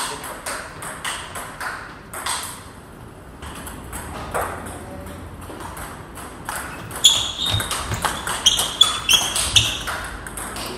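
Table tennis ball clicking off bat and table in a rally. It starts about seven seconds in, with sharp pings about three a second. A few scattered ball bounces come before it.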